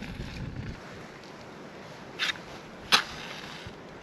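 Two sharp clicks or snaps about three-quarters of a second apart, the second louder, over a steady low hiss.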